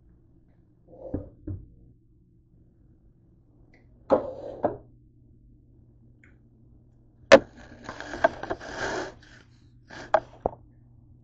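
Plastic dressing bottles handled and set down on a kitchen countertop: a series of knocks and clunks, one sharp click about seven seconds in, then a second or so of rustling and scraping, over a faint steady hum.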